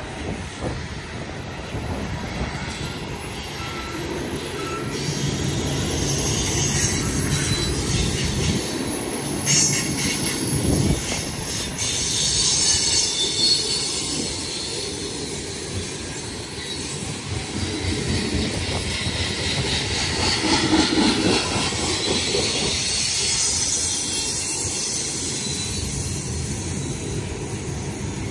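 Loaded coal train's aluminium bathtub gondolas rolling past on steel wheels: a steady rumble and clatter over the rails, with high wheel screeches coming and going several times.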